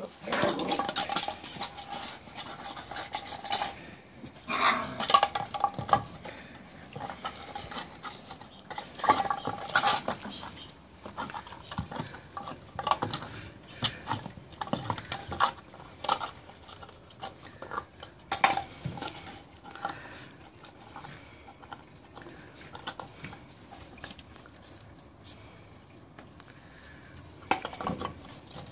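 Puppies knocking a hard plastic toy about on concrete paving slabs: irregular bursts of clattering and scraping knocks, quieter for a stretch late on.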